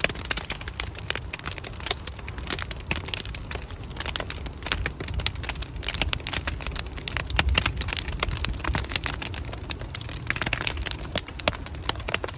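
Bonfire of old barn boards burning, the wood crackling and popping rapidly and without letup over a low rumble.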